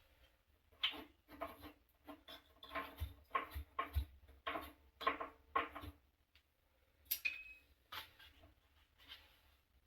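A string of light clicks and knocks from hand tools and metal parts being handled during water heater element and thermostat work, several a second for about five seconds, then a few isolated clicks.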